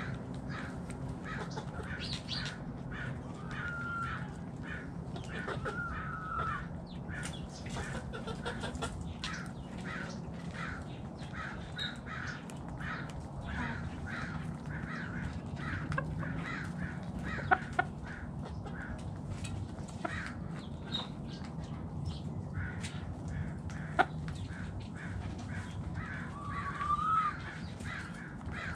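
Chickens clucking: a steady run of short clucks, with a few longer drawn-out calls, one of the loudest near the end. A few sharp knocks come about two thirds of the way in, over a steady low hum.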